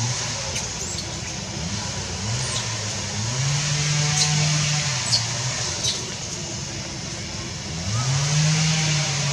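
A vehicle engine revving up and easing off in slow swells, about three times, over a steady high hiss with a few short high chirps.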